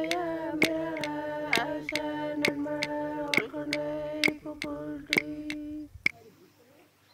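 Aboriginal women singing a traditional song on a long held line, accompanied by wooden clapsticks struck together about twice a second. The singing and clapping stop about six seconds in.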